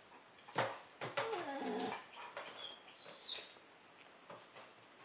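Old English Sheepdog whining, a falling, wavering whine about a second in, just after a sharp knock. A short high squeak comes about three seconds in.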